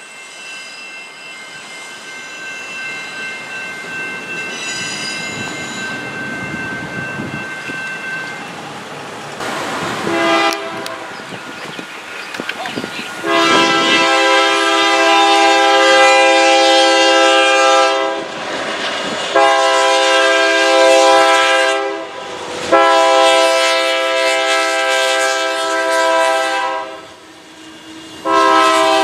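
Union Pacific freight locomotive's air horn sounding for a grade crossing. A short blast comes about ten seconds in, then three long blasts of several seconds each, and another starts near the end as the locomotives reach the crossing. A fainter steady tone is heard in the first eight seconds.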